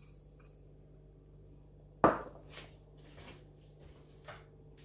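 Kitchenware knocking: a single sharp knock about two seconds in, like a bowl set down on the worktop, followed by a few faint light taps and clicks.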